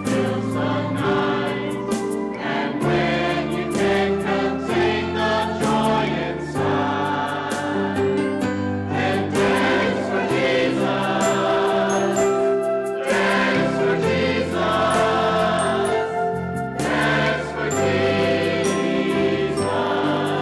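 Mixed church choir of men and women singing together, sustained notes running on without a break.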